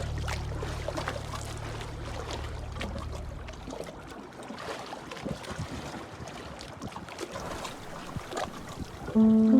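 Small river waves lapping and trickling, with many small irregular splashes. A held low music note fades out over the first few seconds, and music tones come back near the end.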